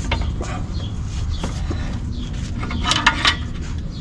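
Metal clanks and scrapes from a pry bar and exhaust mid-pipe being levered and pushed loose at the flange, with a few short knocks near the start and a quick cluster of sharp knocks about three seconds in, over a steady low rumble.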